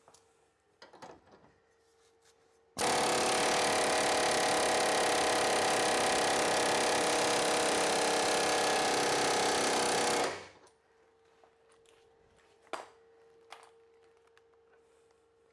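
Impact wrench hammering on a rusted-in rear link-arm bolt for about seven seconds, starting abruptly and then cutting off. The bolt is seized with rust. A few light metal clinks come before and after.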